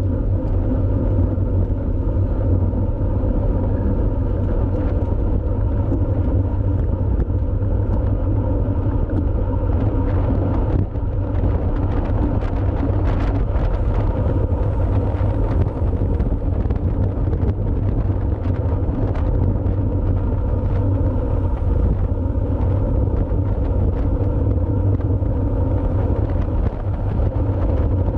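Steady wind rush and road rumble from a road bike riding at speed, heaviest in the low end, with scattered faint clicks.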